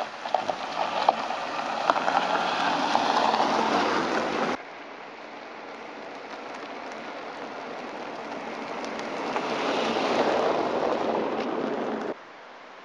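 A car on a gravelly country lane, its tyre and road noise with scattered gravel crackle rising as it nears, cut off abruptly about four and a half seconds in. Then a car approaching and passing close, the tyre noise swelling to a peak and cut off abruptly near the end.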